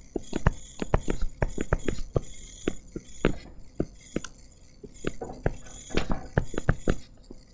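Stylus pen tapping and clicking on a touchscreen as an equation is handwritten: an irregular run of sharp clicks, several a second.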